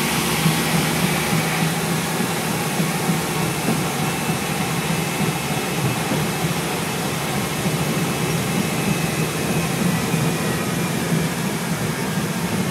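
Scania N230UB bus's five-cylinder diesel engine running steadily, heard from inside the passenger cabin as a low hum with a constant rush of road and running noise.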